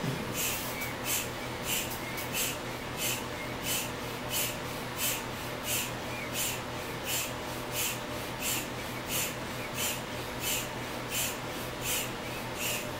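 Small hand pump inflating an exercise ball: a steady rhythm of short air puffs, about one and a half a second, one for each squeeze of the pump.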